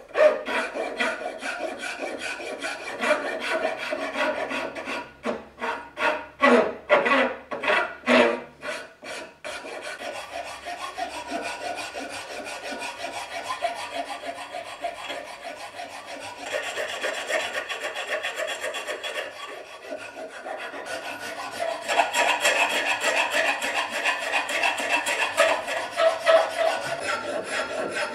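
Flat metal hand file rasping over a palo rosa wood knife handle. It goes in separate push strokes, about two a second, for the first nine seconds or so, then becomes a denser, continuous filing.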